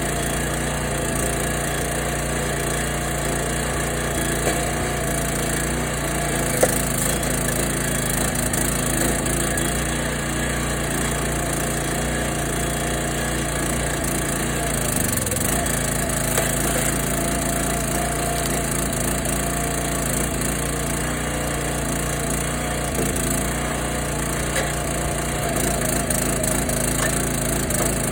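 Kohler 6.5 hp single-cylinder engine of a small 22-ton hydraulic log splitter running steadily, its pitch dipping briefly about halfway through as it takes load, with a few sharp cracks of wood splitting.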